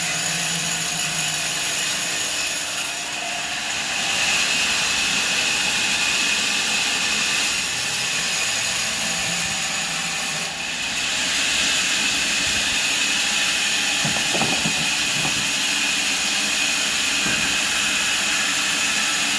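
Antique sawmill's saw running steadily, a dense hiss with a steady high whine, growing a little louder about four seconds in.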